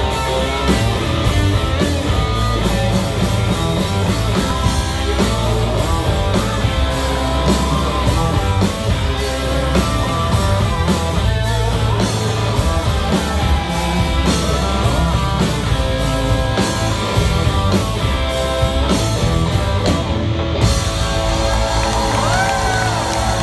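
Live rock band playing loud through the PA: electric guitars over a steady drum beat, heard from within the audience.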